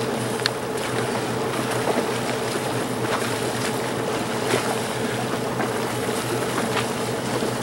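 A steady mechanical hum over a broad hiss of wind and water, with a few faint clicks scattered through it.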